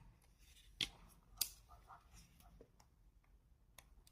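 Faint clicks and taps of a small screwdriver working the screws on a steering-wheel button panel, the two clearest about a second in and half a second later.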